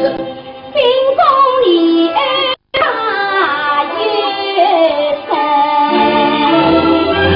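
Huju (Shanghai opera) music: a melody line slides and wavers in pitch over the traditional accompaniment. The sound cuts out for a moment about two and a half seconds in. Lower accompaniment notes take over near the end.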